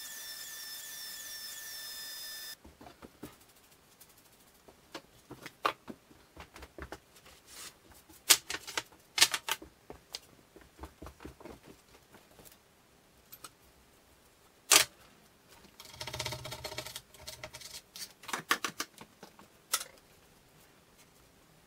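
A miter saw's motor whines steadily for the first couple of seconds and stops abruptly. Then wooden stretcher bars clatter and knock as they are handled and set down on a wooden workbench, in irregular sharp clicks and knocks, with a brief rumbling, rattling patch about sixteen seconds in.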